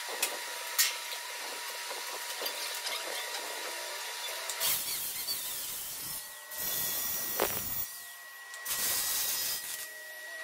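Shop hum with a couple of sharp knocks, then a MIG welding gun welds in three short runs of arc crackle, each a second or two long with short pauses between, tacking a line-boring bearing mount onto the hitch's bore.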